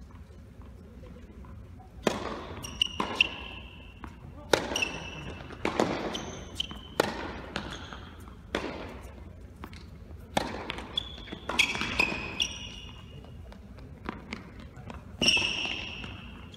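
Tennis rally: racket strikes and ball bounces ringing out in a large echoing hall, every second or so, with short squeaks of shoes on the court between shots.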